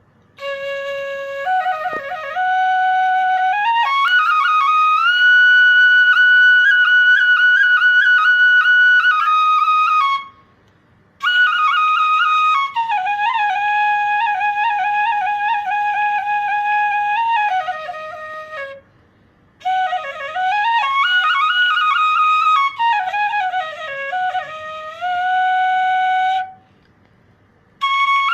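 Solo bansuri (bamboo flute) playing a slow melody. Its long held notes are decorated with quick grace notes, and the long phrases are broken by short pauses for breath.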